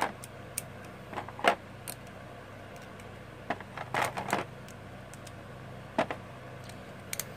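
Infinity Nado spinning tops, with their metal and plastic parts, being handled and shifted about by hand, giving about seven short clicks and clacks at irregular intervals, over a faint steady hum.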